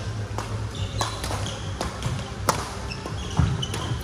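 Badminton rally: rackets striking the shuttlecock with sharp, short cracks, roughly one or two a second, over a steady low hum from the hall's fans.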